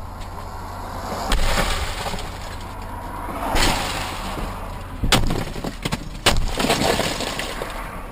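Four heavy blows with breaking glass, a second or more apart, the last two the sharpest and loudest: a car window being smashed in.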